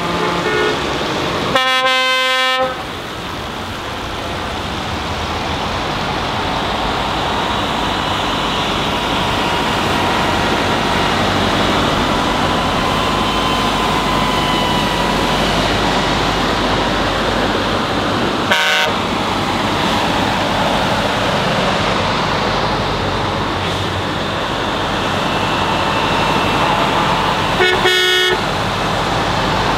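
Truck horns sounding over the steady running of truck engines. One long blast comes about two seconds in, a short toot past the middle, and another blast with a different pitch near the end.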